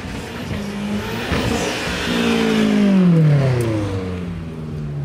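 A car accelerating past, its engine note swelling to a peak about three seconds in, then dropping in pitch and fading as it goes by and away.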